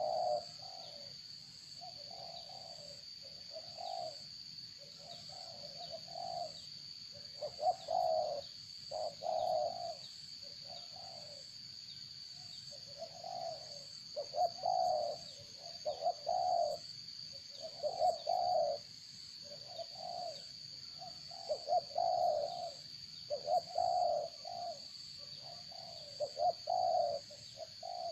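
A bird cooing: low notes repeated in short groups of two or three, again and again, over a steady high-pitched whine.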